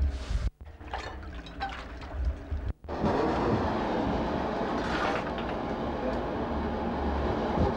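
A blacksmith's coal forge fire with air blown into it, making a steady rushing, crackling noise that sets in about three seconds in, after a choppy start broken by brief dropouts.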